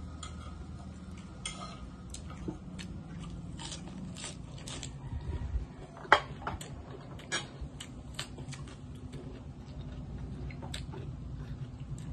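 Close chewing and crunching of raw vegetables such as lettuce: irregular crisp crackles, with a sharp click about six seconds in, over a steady low hum.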